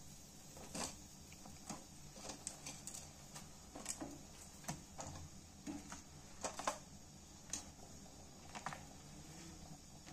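Faint, irregular sharp clicks and pops over a low steady hum, from a pan of vegetable broth boiling as dry Maggi instant-noodle cakes are put into it.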